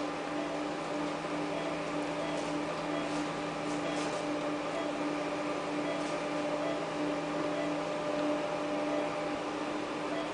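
Steady machine hum: a held low tone with a few overtones over an even hiss, with a few faint clicks.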